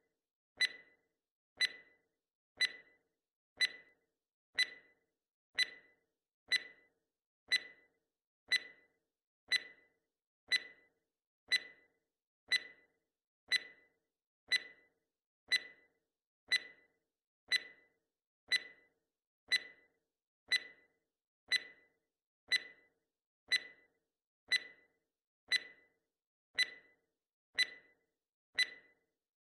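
Countdown-timer clock tick sound effect, ticking once a second. Each tick is a short, sharp click with a brief ringing tail.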